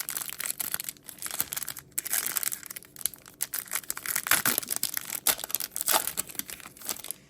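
Foil trading-card pack wrapper crinkling and tearing as it is handled and ripped open, a busy irregular crackle.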